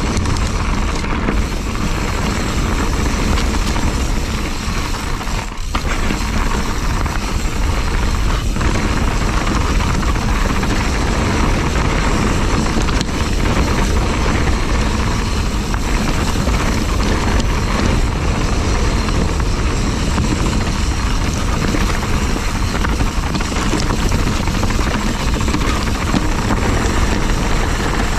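Steady wind rumble on the camera's microphone mixed with tyre and bike rattle from a mountain bike being ridden along a trail.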